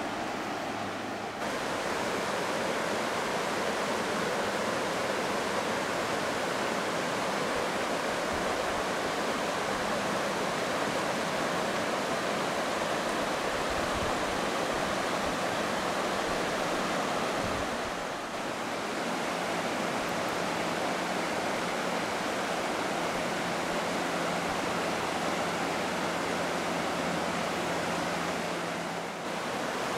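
River water rushing steadily over a shallow, stony riffle, a constant even rush of water.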